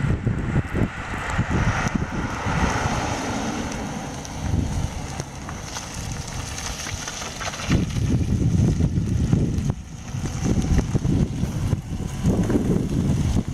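Strong blizzard wind buffeting the microphone: an uneven, gusting low rumble that swells and drops, with a steady high hiss over it.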